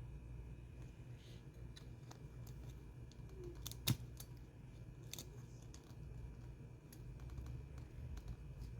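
Small, light clicks and taps from handling a phone's parts and tools during reassembly, with one sharp click about four seconds in, over a steady low hum.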